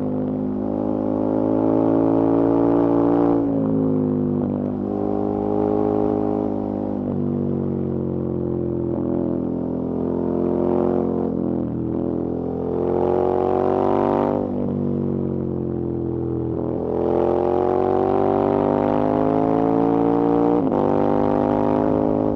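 KTM 1290 Super Adventure S's V-twin engine under way, its pitch climbing as it accelerates and dropping back several times, about 3 and 7 seconds in and again around 14 seconds, as the rider works the throttle and gears.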